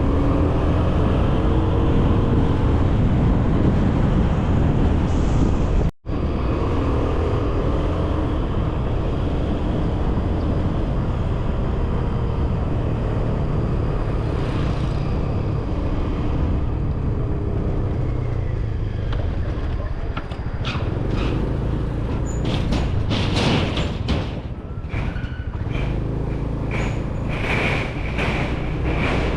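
Motor scooter being ridden, its small engine running under a steady rush of wind on the microphone. The sound drops out sharply for a moment about six seconds in, and in the last third there is a run of short, sharp rushes of noise.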